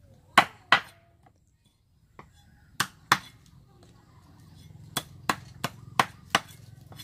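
Cleaver chopping a pangasius fish on a round wooden chopping block: nine sharp strikes, a pair near the start, another pair about three seconds in, then five in quick succession, about three a second, near the end.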